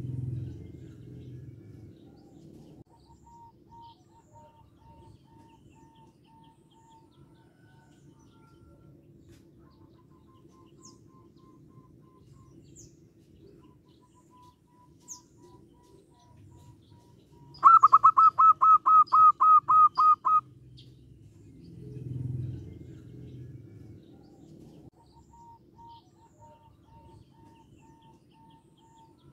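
Zebra dove (perkutut) calling. Soft low cooing comes near the start and again about 22 seconds in, and the loudest call, about a dozen quick, evenly repeated notes over about three seconds, starts around 18 seconds in. Faint high chirping of other birds runs underneath.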